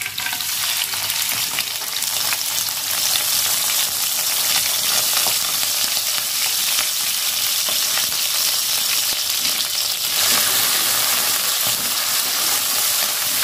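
Shrimp frying in hot oil in a wok, sizzling steadily with fine crackling; the sizzle grows fuller about ten seconds in.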